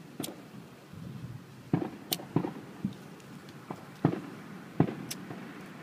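Disposable flint lighter being struck again and again, the thumb wheel giving a sharp click about every second without the flame catching.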